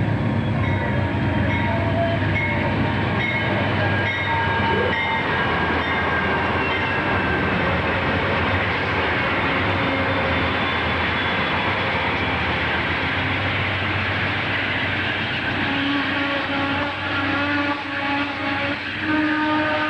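Amtrak's California Zephyr pulling past at close range: the lead GE Genesis P42DC diesel locomotives run by with a heavy engine rumble, then bi-level Superliner passenger cars roll past with steady wheel noise. Several high, steady squealing tones sound over the rolling noise, louder near the end.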